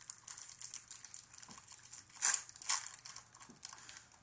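Plastic snack wrappers crinkling as they are pulled open by hand, a dense rustle with two louder crackles a little past halfway.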